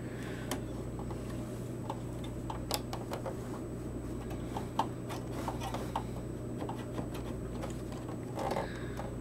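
Scattered small plastic and metal clicks and taps as the old AGP graphics card is worked free of its slot and the green plastic retention latch is handled, over a steady low hum.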